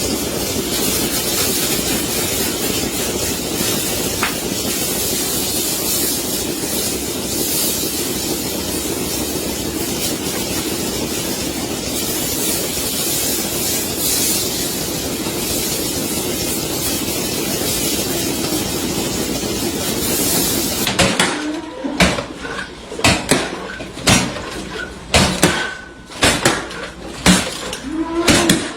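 Milking-parlour machinery running with a steady, even rushing noise that cuts off suddenly about twenty seconds in. Then come a series of sharp metal clanks and knocks, and a cow lowing near the end.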